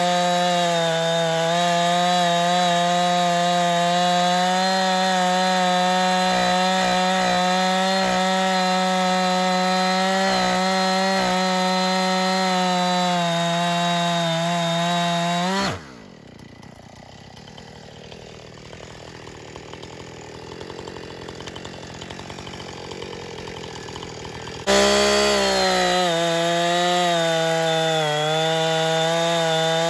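Husqvarna 460 Rancher two-stroke chainsaw running at high speed, cutting through a log with a steady engine note. Just past the middle it drops away suddenly to a faint noise for about nine seconds, then comes back at full speed.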